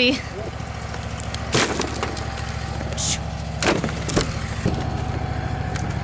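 Wooden sawmill slabs tossed onto a pile of offcuts, knocking and clattering against each other in three or four sharp hits. Under them a steady engine hum runs throughout: the sawmill's engine idling.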